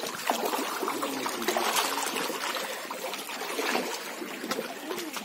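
Lake water splashing and lapping in the shallows: a steady wash with a dense patter of small splashes.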